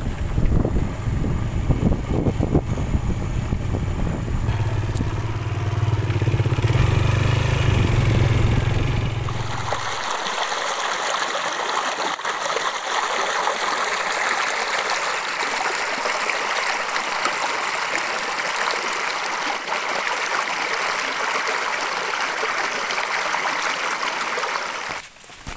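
Motorcycle engine running with wind rumble on the microphone, holding a steady low hum for a few seconds before cutting off abruptly about ten seconds in. A loud, steady rushing noise without any low end follows.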